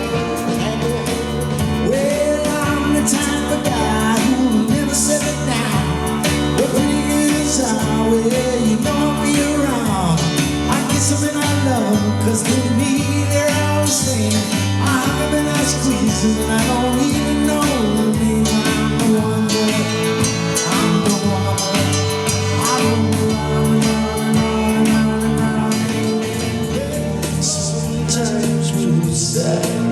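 A pop medley of late-1950s and early-1960s songs with a steady beat, bass and a gliding lead melody.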